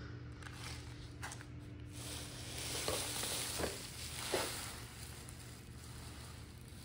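Dry fall leaves rustling and crackling as a jute sack full of them is handled, louder from about two seconds in, with a few sharper crunches.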